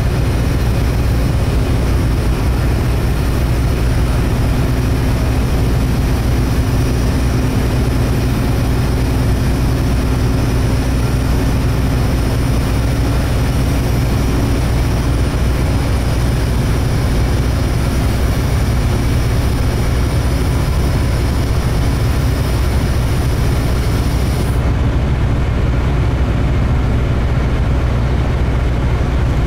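Steady low drone of the car ferry Naoshima's diesel engines as it pulls away from the pier under way. The higher hiss over it falls away about 25 seconds in.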